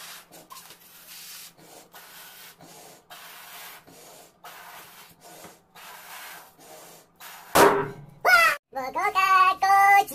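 A person blowing up a latex balloon by mouth: a run of breathy puffs of air, each about half a second long. About seven and a half seconds in there is a sudden loud bang, followed by a high voice wailing, its pitch sliding up and down.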